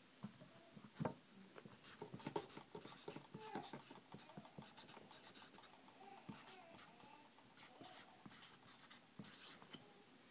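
Faint scratching, rustling and light clicks of hands and a sleeve handling things right next to the microphone, in near silence; one sharper click comes about a second in.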